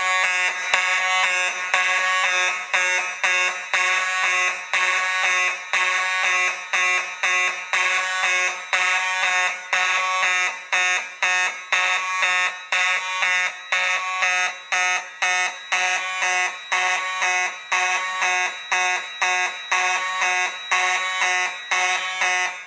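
Two fire alarm horns sounding at once, loud, in rapid pulses that do not quite line up, set off by a manual pull station. The alarm cuts off near the end when the system is silenced.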